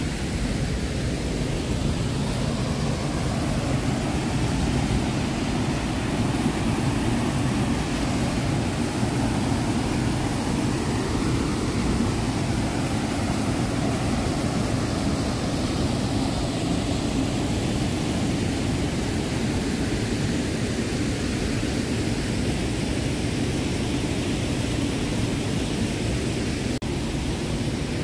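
Steady rush of water over the Manavgat waterfall, a broad, low cascade on the Manavgat River, a constant noise heaviest in the low range, with a momentary dropout near the end.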